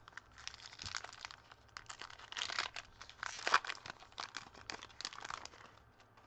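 A baseball card pack's plastic wrapper being torn open and crinkled: a run of irregular crackles lasting about five seconds.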